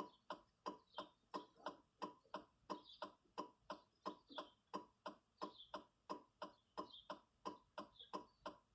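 Even, light mechanical ticking, about three ticks a second, with no other sound.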